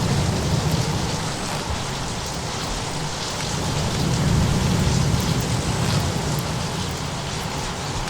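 Storm ambience: a steady hiss of heavy rain over a low thunder rumble that swells and peaks about halfway through, with a few faint fireplace crackles.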